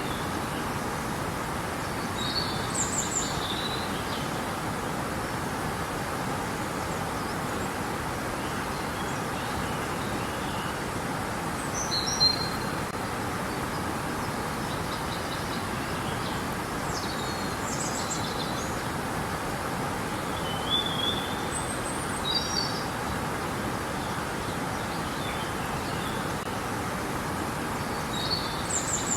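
Steady rush of flowing river water, with songbirds chirping and trilling now and then above it, in short scattered bursts.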